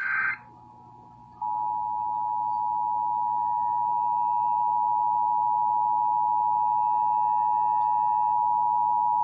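Emergency Alert System two-tone attention signal, the 853 Hz and 960 Hz tones sounding together, played through a clock radio's speaker. It comes in about a second and a half in and holds steady. Just before it, at the very start, is the short buzzing tail of a SAME header data burst.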